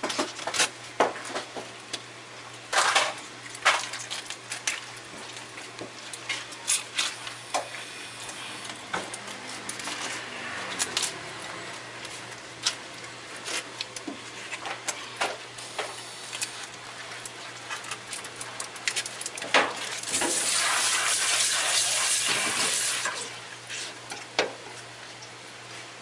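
Kitchen knife knocking and scraping on a wet plastic cutting board as red gurnard are cut into fillets, in irregular sharp knocks. About twenty seconds in, water gushes for about three seconds, rinsing the board.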